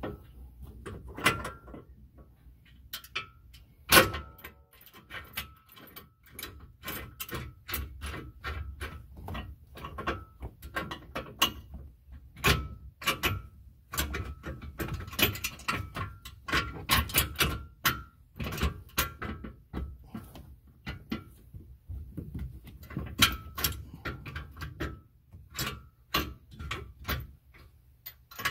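Irregular small metallic clicks and clinks of a steel grill-guard mounting bracket and its bolts being handled and fitted by hand under the vehicle, with one sharp metal clank about four seconds in. A low steady hum runs underneath.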